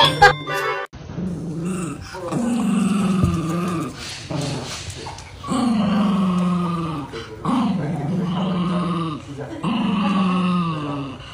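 A small dog giving long, drawn-out growling howls, about five in a row, each wavering in pitch.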